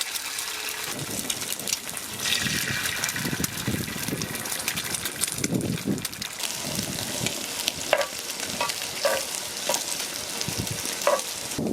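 Food sizzling and frying in a hot pan, a steady crackle with a few short clicks in the second half.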